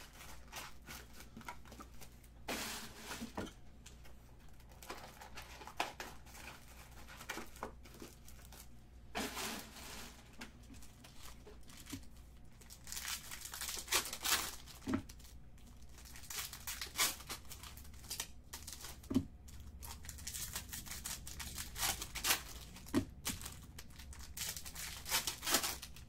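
Foil wrappers of 2018 Bowman's Best baseball card packs being torn open and crinkled in repeated bursts.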